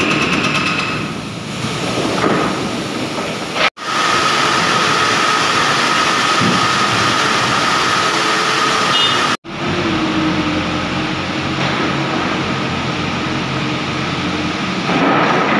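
A small wheel loader's diesel engine runs inside the steel shell of a rotary cement kiln, a steady rumble with a held whine. The sound cuts off abruptly twice, about 4 and 9½ seconds in. In the first second, a hydraulic breaker is still hammering at the kiln's refractory brick lining.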